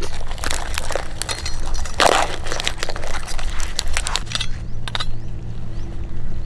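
Live mud crabs clambering over one another on grass: irregular clicks, crackles and scrapes of their shells, legs and claws knocking together, with a denser crunch about two seconds in, over a steady low rumble.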